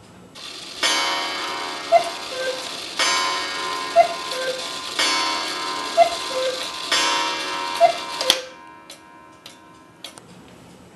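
Wooden cuckoo clock calling four times, a falling two-note cuckoo about every two seconds over a ringing tone, followed by a few sharp clicks.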